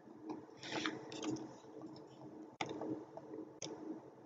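Computer mouse clicking: a short scuffle of clicks and handling about a second in, then two sharp single clicks about a second apart, over a faint low hum.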